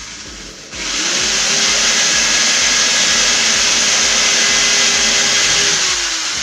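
Electric power tool motor spinning up about a second in and running steadily with a high whine for about five seconds, then winding down near the end.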